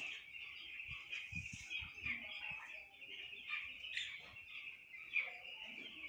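A large flock of ten-day-old broiler chicks peeping continuously, many high chirps overlapping into a steady chorus.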